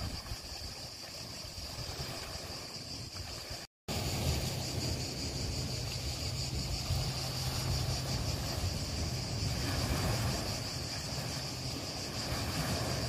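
Steady outdoor ambience: an even high-pitched buzz over a low rumble, with a split-second dropout to silence about four seconds in.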